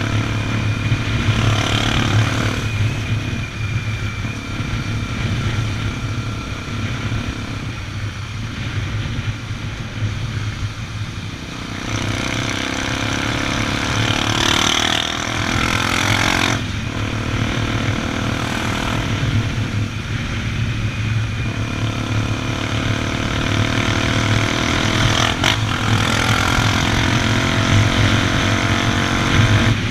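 Honda XR 250 Tornado's single-cylinder four-stroke engine running under way, its note rising and falling with the throttle, over steady wind rush and road noise.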